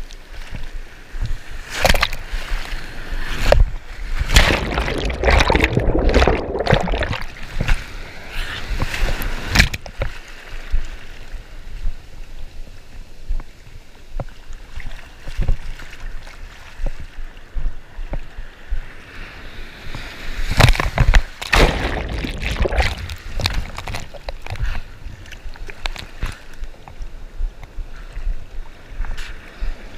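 Ocean surf and foaming whitewash rushing around a GoPro held at water level, with water splashing against the camera. Loud surges through the first ten seconds and again from about twenty to twenty-four seconds, with a lower wash of water between.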